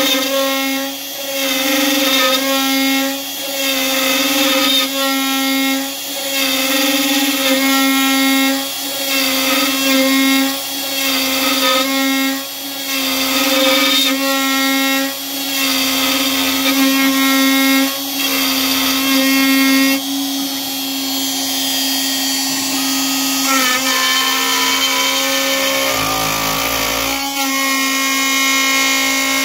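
CNC router spindle whining steadily while a 1/4-inch ball-nose end mill hogs deep passes out of a turning wooden cylinder on a rotary axis at 200 inches per minute. The cutting noise rises and falls about every two seconds for most of the time, then runs steadier near the end.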